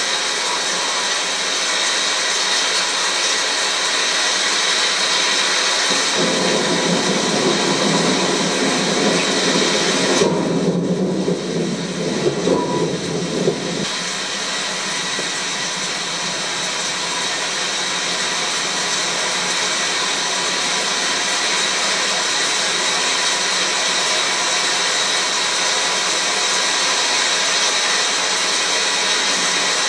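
Heavy downpour: a steady hiss of rain. A deeper rushing noise joins in about six seconds in and fades out several seconds later.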